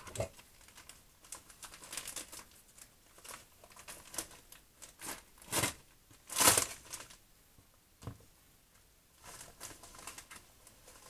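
Paper packaging crinkling and rustling in irregular bursts as a parcel is unwrapped by hand, with a few louder crackles, the loudest a little past the middle.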